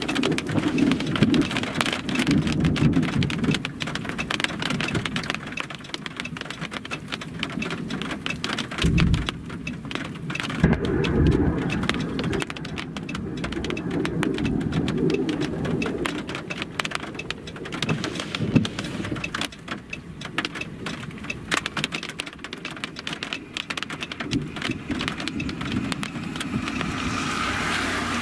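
Rain pattering on a stopped vehicle's roof and windshield, heard from inside the car as dense ticking of drops, with low rumbles about nine and eleven seconds in.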